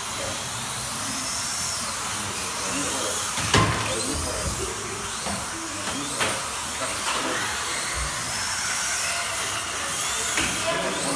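Slot cars racing on the track: their small electric motors whine, rising and falling in pitch as they speed up and brake through the corners, over a steady running noise, with one sharp knock about three and a half seconds in.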